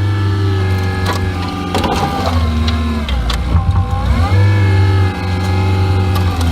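CAT 924F wheel loader's diesel engine revving under load: its pitch rises, sags about three seconds in, then climbs again. Several sharp cracks and snaps of wood come in the first half as a tree gives way.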